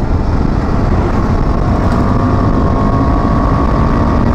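KTM 390 Adventure's single-cylinder engine running steadily while the motorcycle is ridden, over a steady low rush of road noise.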